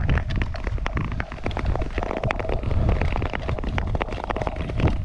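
Nordic skates gliding over thin first ice, with many small sharp clicks and cracks over a heavy low rumble of wind on the microphone. A heavier thump comes near the end.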